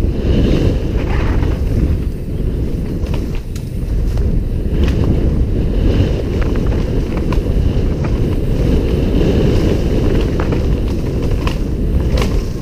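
Heavy wind buffeting on a helmet-mounted camera microphone as a downhill mountain bike runs fast down a dirt trail, with the bike's rattle over rough ground and a few scattered sharp clicks and knocks.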